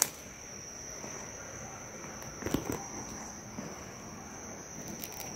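Forest insects keep up a steady, high-pitched chirring drone on one pitch. About two and a half seconds in there is a brief rustle in the undergrowth.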